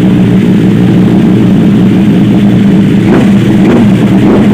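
Superbike engine running with a steady drone, held at constant revs.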